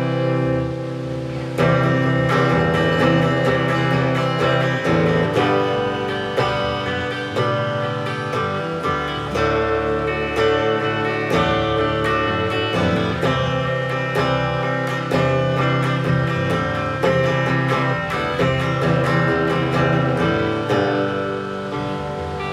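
Telecaster electric guitar played alone, picked notes and strummed chords in a country-style instrumental passage with no vocals.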